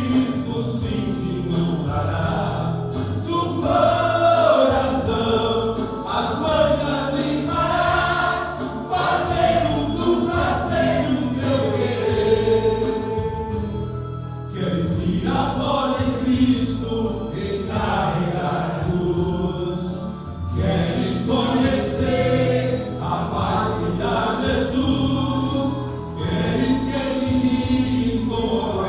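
Men's gospel choir singing a Portuguese hymn over a steady instrumental backing, with a brief lull about halfway through.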